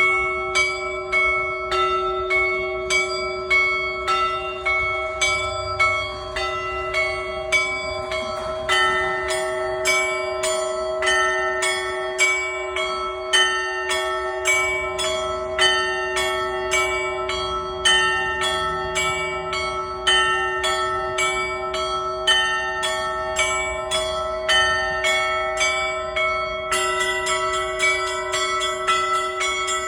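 Orthodox church bells ringing a festal peal: smaller bells struck in a quick repeating pattern, about two strokes a second, over the steady hum of a larger bell. More bells join about nine seconds in, and higher bells join again near the end.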